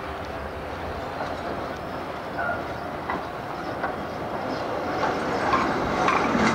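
Amsterdam GVB articulated tram rolling along street track as it approaches and passes close by: a steady rumble with a few light clicks from the wheels on the rails, growing louder about five seconds in as the tram draws alongside.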